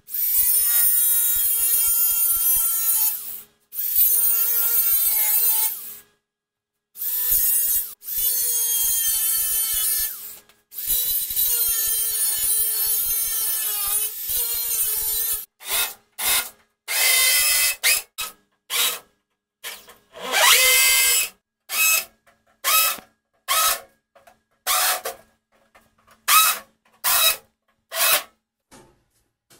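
DeWalt cordless angle grinder running in long stretches with a steady whine as it cuts the aluminium chassis braces, stopping briefly a few times. From about halfway, a cordless drill is run in many short trigger bursts, one of them spinning up with a rising whine.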